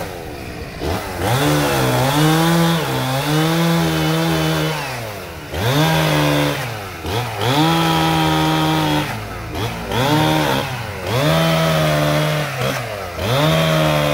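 Chainsaw engine revved up to full throttle about six times, each burst held steady for a second or two before dropping back toward idle.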